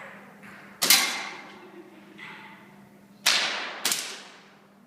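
Three sharp cracks of an air rifle shooting, each fading quickly; the first comes about a second in, and the last two are about half a second apart near the middle.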